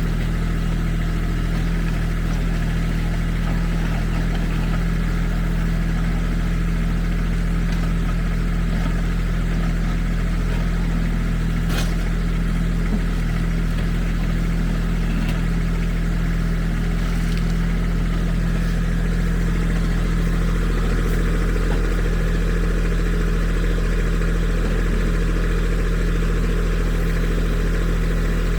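Kubota SSV75 skid steer's diesel engine running steadily at a constant speed.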